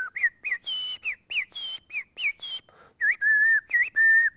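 A man whistling an imitation of a northern mockingbird's song: a quick run of whistled notes, sharp downward slurs alternating with short held tones, each little phrase repeated a few times.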